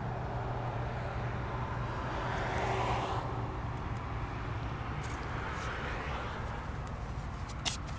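A vehicle passing by: a rushing noise swells to a peak about three seconds in and fades again over a steady low hum, with a sharp click near the end.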